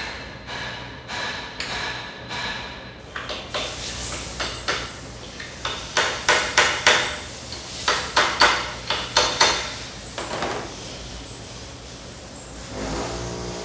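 Sharp metallic knocks and clacks from a freshly rebuilt automotive shock absorber being pre-tested by hand. The knocks come singly at first, then in quick runs of three to five, as the rod is stroked to check that the shock works and builds pressure.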